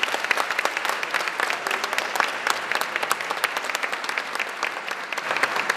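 Theatre audience and cast applauding, a steady patter of many hands clapping.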